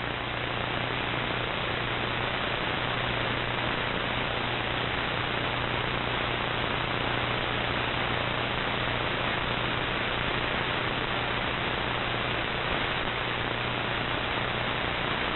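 Steady shortwave static and hiss from an Icom IC-R8600 receiver in AM mode on 15140 kHz, with a low hum underneath. The broadcast transmitter has failed and gone off the air, leaving only band noise.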